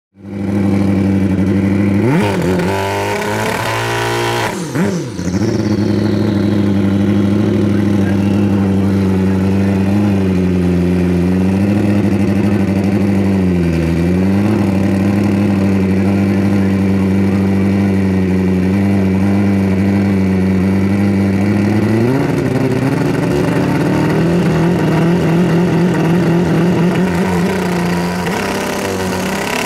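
Pro Street drag motorcycle engines running at the start line. The engines are blipped a few times early on and dip in revs twice. About 22 seconds in they are brought up to a higher, steady rev and held there.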